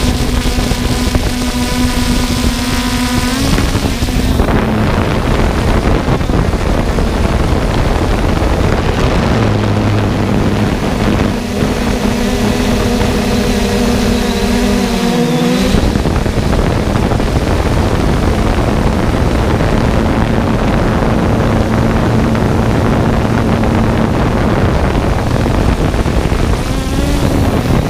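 3DR Solo quadcopter's electric motors and propellers running loudly close to the camera, a steady hum whose pitch shifts several times, with a short dip and rise a little past the middle as the drone manoeuvres.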